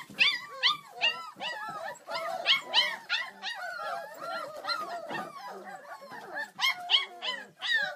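A litter of puppies crying all at once as they wait to be fed: a dense crowd of short, high, arching whines and yelps overlapping without a break, a few louder ones standing out.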